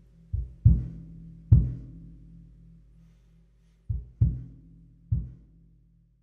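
A low-pitched drum struck six times in an uneven, mostly paired rhythm, each hit ringing on with a low tone that fades; the last hit fades out near the end.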